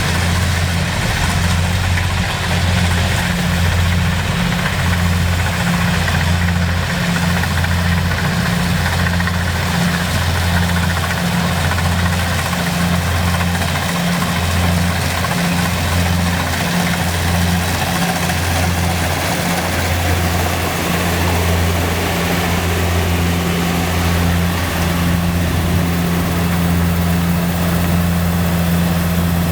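Kubota DC-70 combine harvester's diesel engine running steadily. Its low drone has a slow, regular pulse that evens out near the end.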